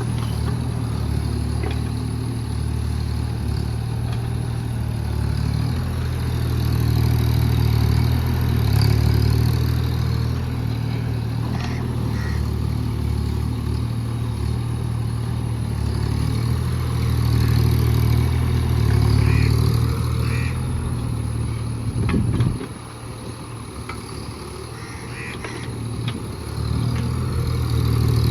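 JCB JS30 Plus mini excavator's diesel engine running steadily under working load. The engine note drops away about three quarters of the way through and comes back up a few seconds later.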